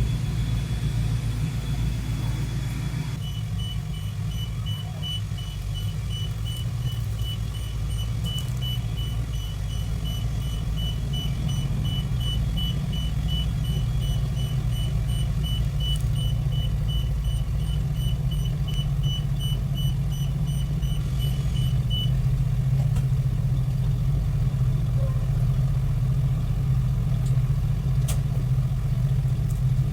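A motor vehicle engine, most likely the crew's work truck, runs steadily with a low rumble. A rapid, evenly repeated high electronic beeping starts a few seconds in and stops abruptly about two-thirds of the way through.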